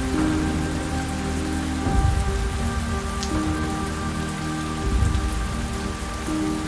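Steady rain falling, with soft, slow music underneath: held notes that change every second or two.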